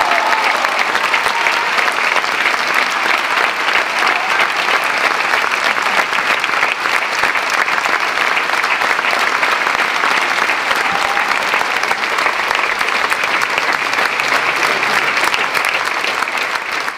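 A large opera-house audience applauding, the dense clapping holding steady throughout.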